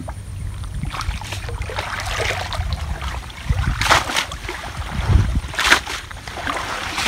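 Water splashing and sloshing as a cast net is hauled up and shaken out by people wading in a muddy canal, with two louder splashes about four and six seconds in.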